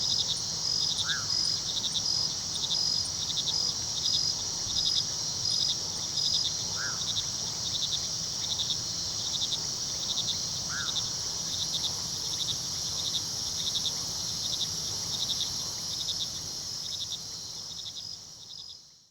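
Night chorus of crickets and other insects: a steady high trill with pulsed chirps repeating about twice a second. It fades out near the end.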